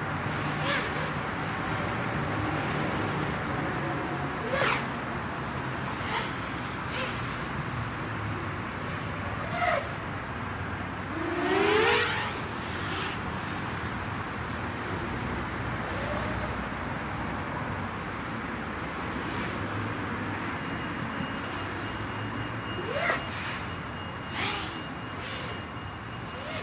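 Steady outdoor background noise with road traffic, cut by several short rising whines from the FPV miniquad's motors on throttle punches, the loudest about twelve seconds in.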